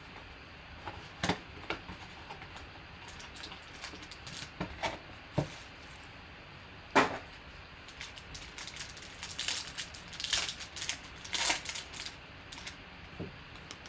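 Hands handling a trading-card box and pack on a table, with scattered clicks and a sharp knock about halfway through, then the plastic wrapping of a Panini Optic Contenders pack crinkling and tearing as it is opened.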